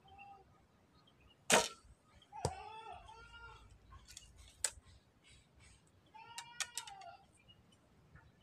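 A shot from a carved traditional Javanese jemparingan bow: the bowstring snaps sharply on release about a second and a half in, followed by a lighter knock about a second later. Two short wavering pitched calls come about three and about six and a half seconds in, with a few small clicks between them.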